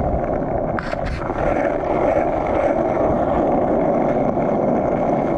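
Skateboard wheels rolling over asphalt down a hill, a steady, even rolling noise, with a couple of clicks about a second in.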